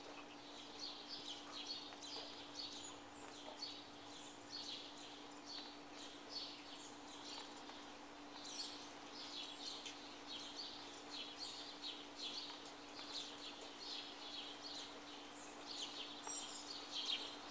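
Backyard birds chirping over and over, many short high calls, with a faint steady hum underneath.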